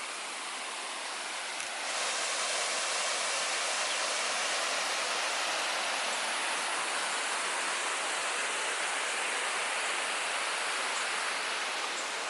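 Waterfall pouring into a pool: a steady rush of falling water that gets louder about two seconds in.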